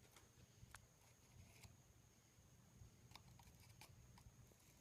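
Near silence with a handful of faint, short ticks scattered irregularly.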